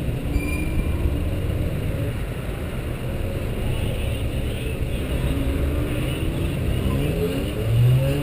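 Mazda MX-5 Cup car's four-cylinder engine idling while stationary, a steady low rumble, with a rising engine note near the end.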